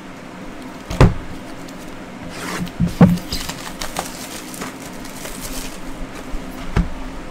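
A cardboard trading-card box being handled and set down on a table: a sharp knock about a second in, a cluster of knocks around three seconds, another near the end, with scraping and rustling of the box in between.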